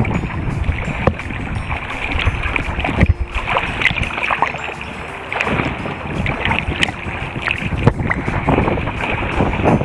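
Seawater splashing and sloshing around a camera held at the surface as a swimmer swims on his back, with many short splashes and some wind buffeting on the microphone.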